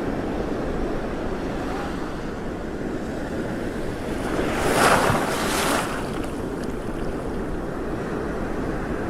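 Wind rumbling on the microphone over open water, with a wave splashing about five seconds in.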